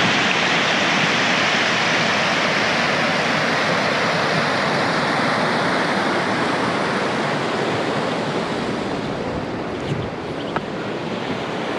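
River water rushing over a small rocky cascade: a steady rush that softens a little over the last few seconds.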